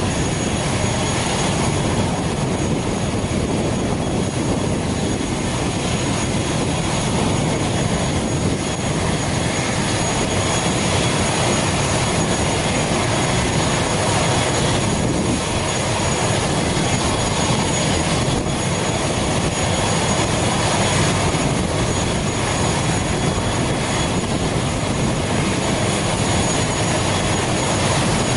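Parked ATR 72's Pratt & Whitney PW127 turboprop engine running steadily on the stand: a constant rushing noise with a thin high whine on top.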